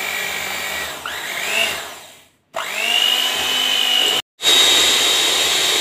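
Electric hand mixer with twin wire beaters beating chocolate cake batter: a steady motor whine that rises in pitch as it spins up. It stops twice, briefly, and starts again, running louder near the end.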